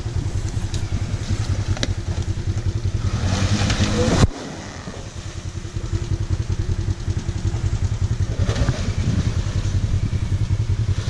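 Lifted Nissan Pathfinder's V6 engine running under load as it climbs out of a muddy ditch, with a throbbing exhaust note; the revs rise about three to four seconds in, cut off abruptly, and rise again near the end.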